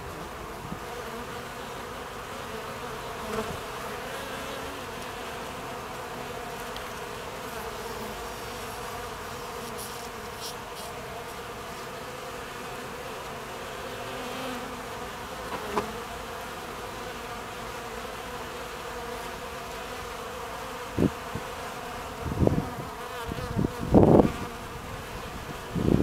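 Buckfast honeybees buzzing at a hive entrance: a steady hum of many bees flying in and out, with a few brief, louder sounds near the end.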